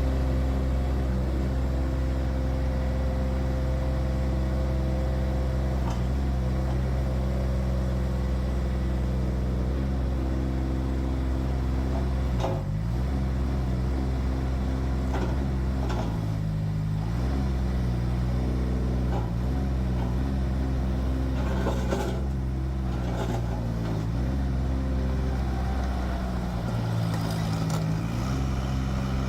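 Kubota three-cylinder diesel of a Cougar CG827 tracked skid steer loader running steadily at high revs, its pitch sagging briefly several times as the engine takes hydraulic load and then recovers, with a few sharp knocks in between.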